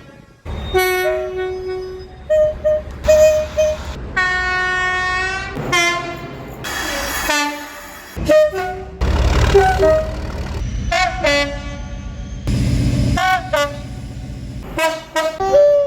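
A rapid series of short, abruptly spliced clips of train horns sounding. Each blast holds several tones at once; some are quick toots and some are held for a second or two. A low rumble of a moving train lies under some of them.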